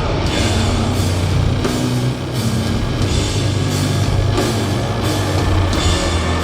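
Heavy doom metal band playing live: distorted guitars and bass holding low sustained notes under drums, with cymbal crashes on a slow beat about every 0.7 seconds.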